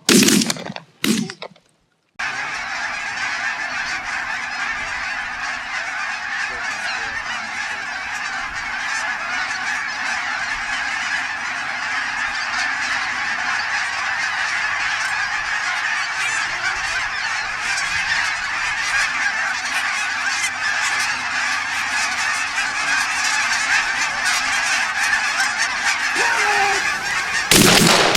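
A large flock of geese honking in a dense, continuous chorus of many overlapping calls. It is preceded by two shotgun blasts in the first second and a half, and more shots break in near the end.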